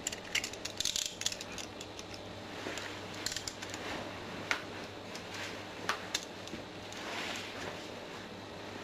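Scattered light metallic clicks and clinks from a pair of handcuffs, with brief rustling swishes, as the cuffed hands are worked around the body.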